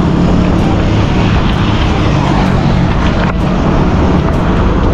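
Wind rushing over the handlebar camera's microphone as a bicycle rolls along a paved road: a loud, steady rush with a low rumble and no breaks.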